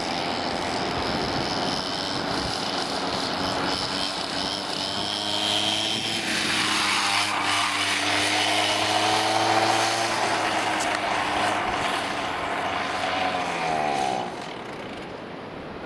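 Small two-stroke chainsaw engine driving a motorised skateboard, running at high revs, its pitch sliding down and the sound dropping away about fourteen seconds in.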